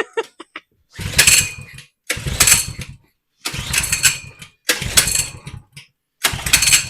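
Coleman 100cc minibike's four-stroke engine being pull-started: five pulls of the recoil starter, each about a second of cranking, without the engine catching.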